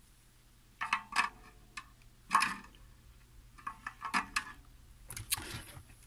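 Handling noise of small metal hand tools on a metal work plate: scattered clinks and knocks as a tool is set down and another picked up. A few come about a second in, more around two, four and five seconds.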